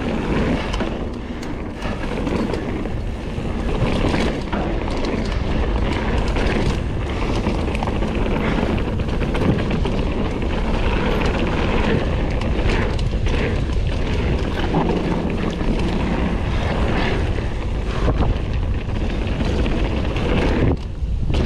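Wind rushing over a helmet- or bike-mounted action-camera microphone as a Kona Process 153 full-suspension mountain bike rolls fast down a dirt trail, with the tyres rumbling and the bike clattering and knocking over roots and rocks.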